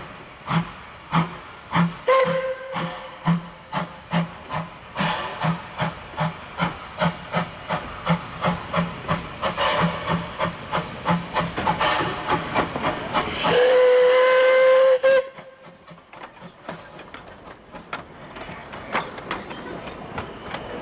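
Narrow-gauge steam locomotive pulling away, its exhaust chuffs starting slow and quickening, with a short whistle toot about two seconds in and a longer whistle blast of under two seconds later on. After the whistle the chuffing drops away and the carriages roll past with a quieter clatter on the rails.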